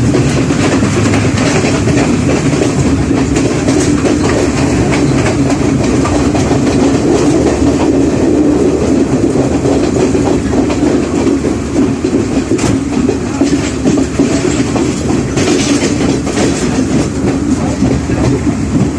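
Passenger train running at speed: a steady rumble of wheels on the rails with the clickety-clack of rail joints.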